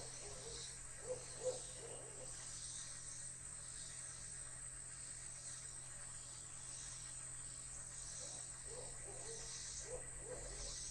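Evening insects chirping in a steady high chorus that pulses about once a second. Faint low calls come near the start and again near the end.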